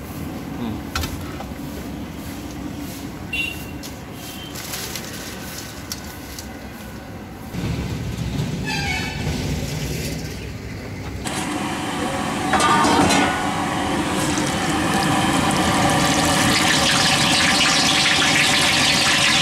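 Hot oil bubbling and sizzling in a large kadai. About eleven seconds in, the sizzle turns louder and denser as a strainer-load of green chillies is deep-fried.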